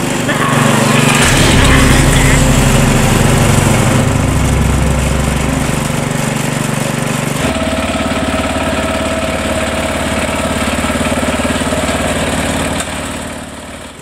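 Small riding-mower engines running with a steady drone. About halfway through the engine note changes abruptly to a different steady one, which fades just before the end.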